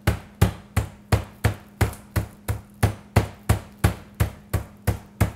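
Meat mallet pounding a boneless chicken breast flat through plastic wrap on a plastic cutting board, in steady even strokes of about three a second.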